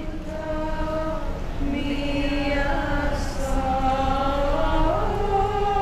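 Voices chanting in long held notes that step up and down in pitch, over a steady low rumble.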